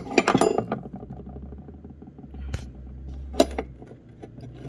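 Metal clicks and rattling from a pair of anvil-style hand pruners being handled: a quick cluster at the start, then two single clicks, over a low steady hum.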